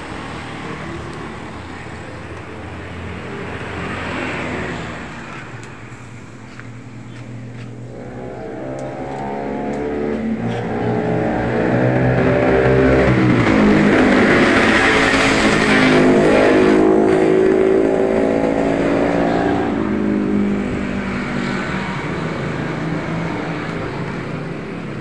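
A motor vehicle passing on the road: its engine grows louder about a third of the way in, is loudest around the middle, and fades away again.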